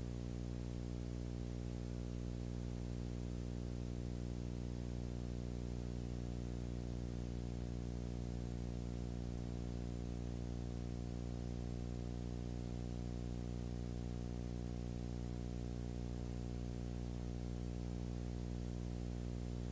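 Steady electrical hum with a stack of overtones under a constant hiss, unchanging throughout: noise in the audio track of a silent film transfer, with no sound from the scene itself.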